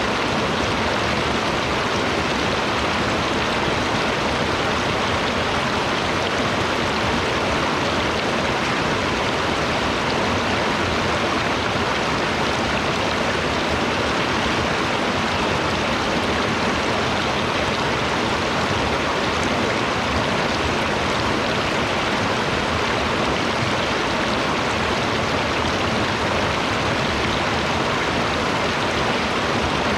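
Running water rushing steadily and evenly, with no change in level.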